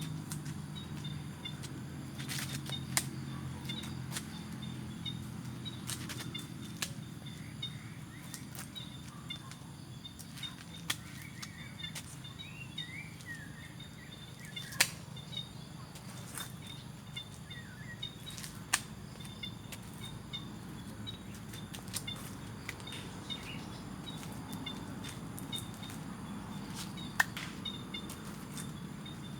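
Outdoor ambience with birds chirping now and then, most around the middle, over a steady low hum. A few sharp isolated clicks stand out.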